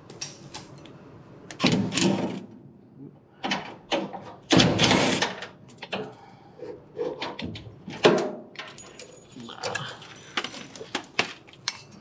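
Hand tools and metal parts clinking and knocking under a car while battery cables are unbolted from the frame, with a couple of louder clatters and scattered light ticks.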